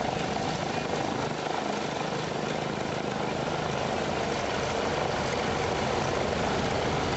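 Boeing Stearman biplane's radial engine running steadily on the ground, propeller turning, growing a little louder over the last two seconds.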